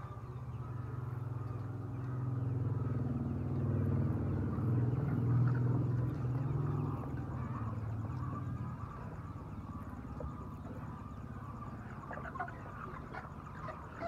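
A motor vehicle's engine hum swells over the first few seconds and then fades away. Under it runs the steady murmur of a flock of laying hens clucking, with a few sharper clucks near the end.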